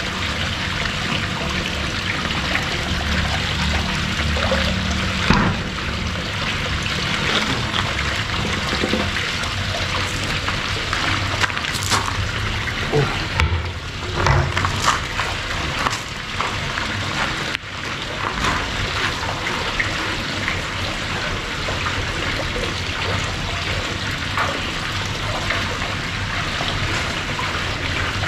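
Small waterfall splashing steadily into a koi pond. A few short knocks and clicks near the middle come from a plastic aerator air pump being handled and set down.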